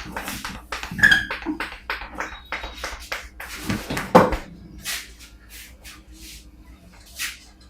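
Hands striking the head and neck in a rapid flurry of short taps and slaps during an Indian head massage, with louder strikes about a second in and near the middle. After that the slaps come more slowly and singly.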